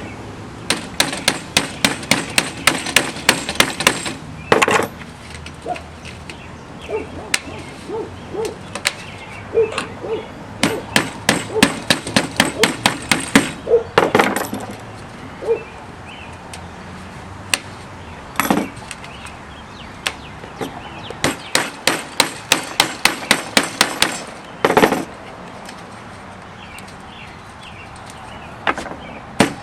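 Rapid light taps, about five a second in runs of a few seconds, with a few heavier single knocks between them, from tool work seating the metal spline and new metal screening into a window screen frame's channel.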